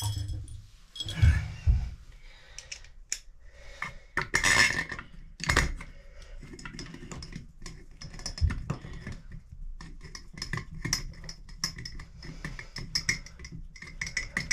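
Small metal shower-trim parts clicking and clinking in the hands as they are fitted onto a Moen Posi-Temp valve's cartridge stem, with a few dull knocks, about three of them.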